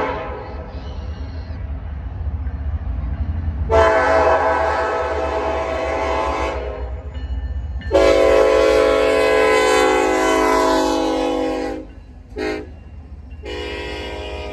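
Norfolk Southern SD70ACe diesel locomotive's air horn sounding two long blasts, a short one and a long one, the grade-crossing signal. Under the horn runs the low rumble of the diesel engines as the train rolls slowly closer.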